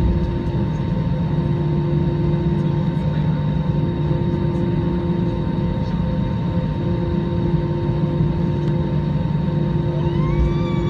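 Airliner cabin noise of an Airbus A320-216 taxiing: a steady engine hum with several held tones over a rushing noise. About a second before the end, a whine rises and then falls in pitch.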